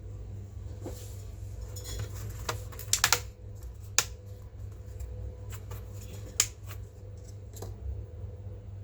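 Irregular sharp clicks and taps of small hard plastic and metal parts being handled while working on a laptop, loudest in a quick cluster about three seconds in, over a steady low hum.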